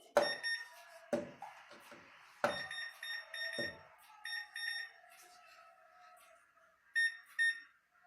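Microwave oven control panel beeping in runs of short, high beeps as it is operated, with a few sharp clicks and knocks in the first four seconds.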